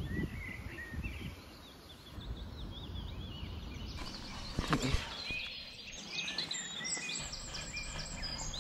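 Small birds chirping over and over in quick, short calls, busier in the second half, over a low rumble of outdoor noise on the microphone. There is a single brief knock about halfway through.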